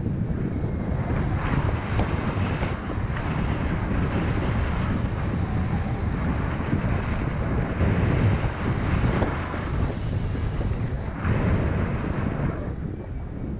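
Airflow of paraglider flight rushing over the camera microphone: a steady wind roar that swells and eases in gusts, loudest about eight seconds in and again near the end.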